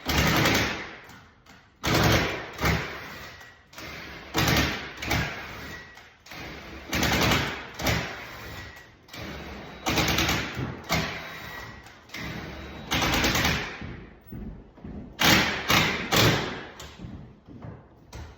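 A series of irregular thumps and knocks, about fifteen of them, each dying away over a second or less, from hands-on installation work on a cabinet.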